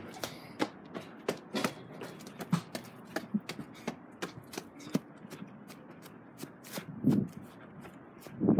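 Quick footsteps and the crackle and knocking of a handheld phone being carried while someone hurries about searching, with a string of irregular clicks and two louder muffled bumps near the end.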